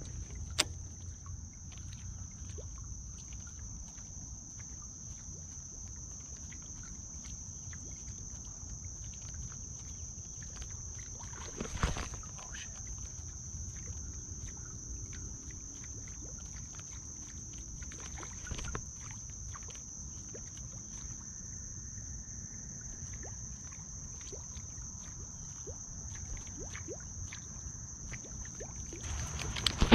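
A steady high-pitched insect drone over a low rumble, with scattered small clicks and a louder knock about 12 seconds in and another near 19 seconds.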